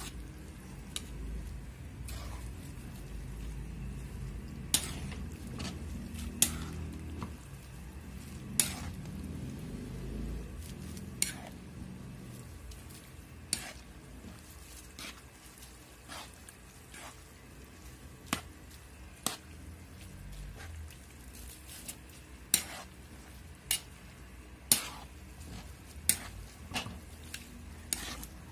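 Metal spatula scraping and clacking against a large metal wok while stir-frying noodles and vegetables, with sharp clinks every second or two over a low rumble that eases after about twelve seconds.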